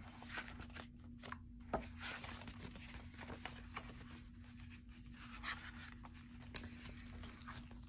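Paper sticker sheets rustling and flapping as the pages of a sticker book are flipped and handled, with scattered soft clicks and a sharper tick near two seconds in and another about six and a half seconds in. A faint steady hum sits underneath.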